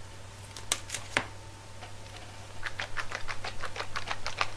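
A plastic sauce pouch shaken quickly in the hands, giving a fast run of crinkly slaps, about seven a second, through the second half. Before that come three single sharp clicks of packaging being handled.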